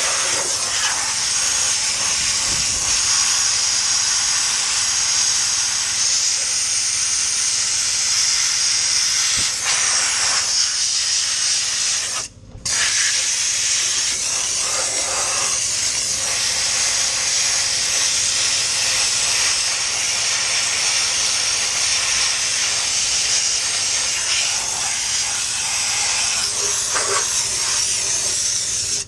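Dry ice blasting nozzle spraying dry ice and compressed air onto car front suspension parts: a loud, steady hiss that cuts out for a moment about twelve seconds in, then resumes.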